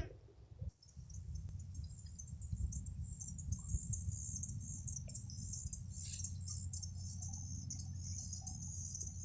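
Insects trilling in a steady, high-pitched chorus over a low, steady rumble.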